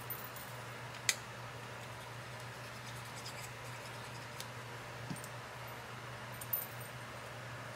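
Faint handling of craft supplies at a work table: a sharp click about a second in and a few small taps and ticks later, over a steady low hum.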